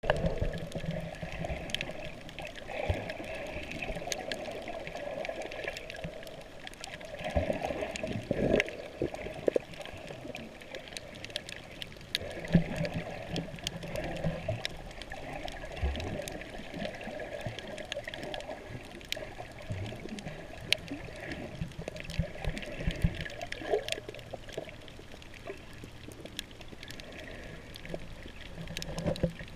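Underwater sound picked up by an action camera in its waterproof housing while snorkelling: muffled water movement and sloshing, with scattered sharp clicks throughout and a few louder swells.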